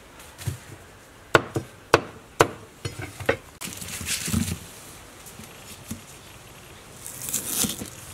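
A knife knocking sharply on a wooden cutting board, about six strokes in three seconds, then the dry rustle of woven palm-leaf cake packets being handled, twice.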